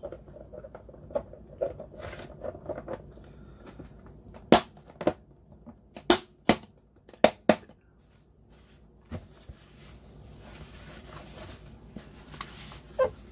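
Snap-lock latches on a food storage container's lid clicking shut, about six sharp clicks over three seconds, among soft handling sounds. Later comes a faint rustle of a paper towel wiping the container.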